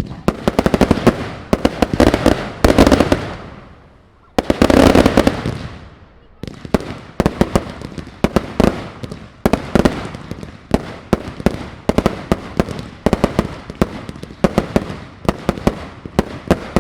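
Fireworks display going off: dense volleys of crackling bangs, a thick loud burst about four seconds in, then a rapid even string of sharp reports, about three or four a second.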